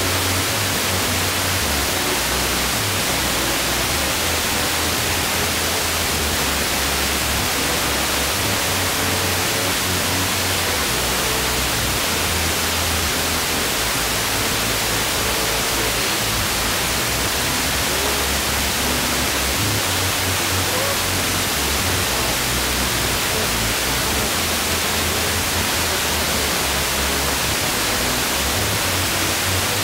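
FM car radio tuned to 89.8 MHz putting out steady hiss, with faint music underneath and a bass line showing through. The stereo coder of the signal is swamped by the chopping of a switching power supply.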